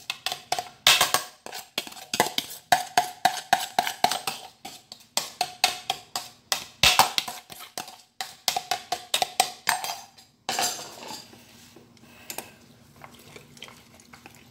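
Chopsticks tapping and scraping against the inside of a plastic mixing bowl in quick clicks while egg mixture is scraped out. About ten seconds in the clicking stops and gives way to softer stirring of the egg and vegetables in a plastic container.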